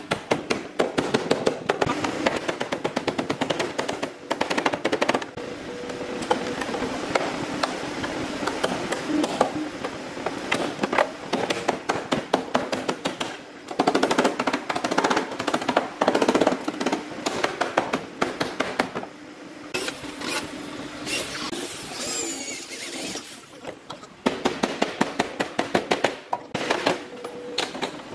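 Workshop tool noise: quick rattling trains of sharp mechanical impacts, broken by stretches of steady hiss and hum.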